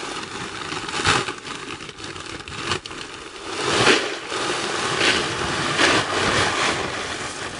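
Drainage gravel poured from a plastic bag into a trench, the stones rattling and sliding out in uneven rushes, the biggest about four seconds in.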